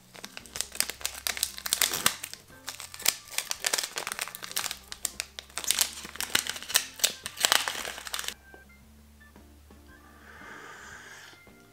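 A Greenfield tea-bag sachet being crinkled and torn open by hand: a dense run of crackles that stops about eight seconds in. Then a short soft sip from an enamel mug, with quiet background music throughout.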